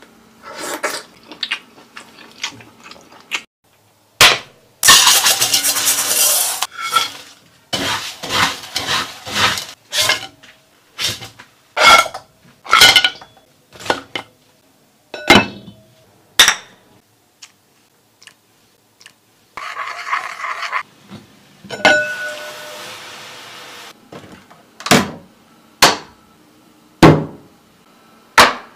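Kitchenware and food containers being handled: a run of about two dozen separate sharp clinks, knocks and scrapes, with a few spells of steady noise between them.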